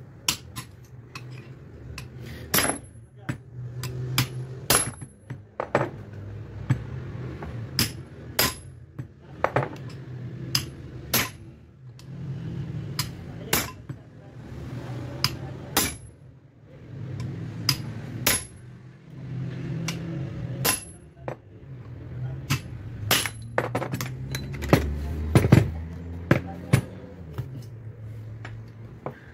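Hammer striking a steel sleeve over an electric water-pump motor's rotor shaft, driving the worn-out ball bearings off the shaft. Sharp metallic strikes come irregularly, roughly one or two a second, some with a brief high ring.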